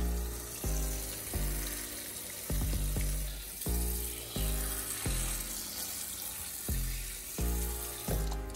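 Kitchen faucet running into a small saucepan, a steady hiss of water, under background music with a steady bass beat.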